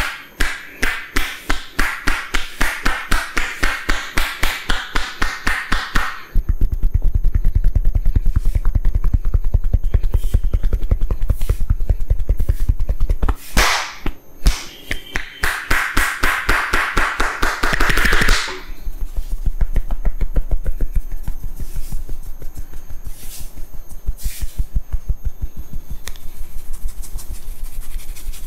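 A barber's hands rapidly slapping and chopping on a head during a massage, several strikes a second in a steady rhythm. About six seconds in, the strokes turn heavier and deeper.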